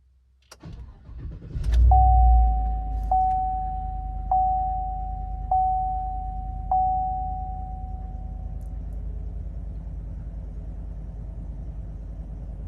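Chevrolet Silverado 1500's 5.3 L V8 cranking briefly, catching about two seconds in and settling to idle. A dashboard warning chime rings five times, evenly spaced. The owner says the truck runs a little rough, shaking like a miss, which he puts down to a failed bank 2 sensor 1 heated oxygen sensor (code P0050).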